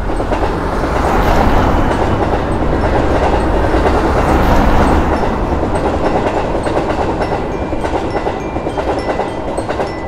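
Train passing by, a dense rumble and rattle of wheels on the rails. It is loudest in the first half and eases a little near the end.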